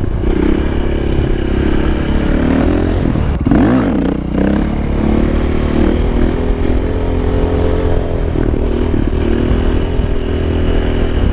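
KTM 530 EXC single-cylinder four-stroke engine running at steady revs under throttle. The revs briefly dip and climb back up between about three and four and a half seconds in.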